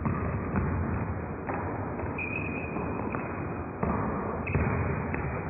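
Basketball players running an offensive set on a gym court: a steady background of gym noise with scattered ball bounces and thuds, and a few short high shoe squeaks about two to three seconds in.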